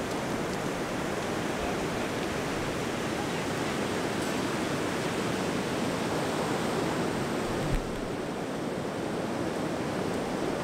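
Ocean surf breaking and washing up a sandy beach, a steady rushing hiss, with a brief low thump about eight seconds in.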